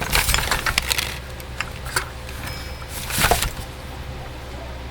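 Small metal tools and parts clinking and rattling as they are handled on a workbench: a clatter of clicks in the first second, a single click about two seconds in, and a louder clattering burst a little after three seconds.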